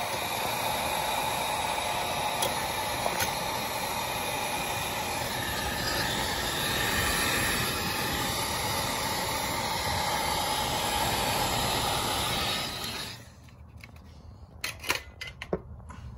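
Heat gun blowing a steady rush of hot air, shrinking heat-shrink tubing over a soldered wire splice. It cuts off about 13 seconds in, followed by a few light clicks.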